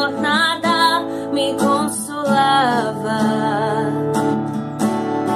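Background music: a gospel song with strummed acoustic guitar and a voice singing long, wavering held notes.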